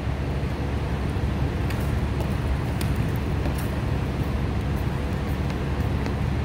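Steady low rumble of background noise in a large indoor sports hall, with a few faint sharp clicks.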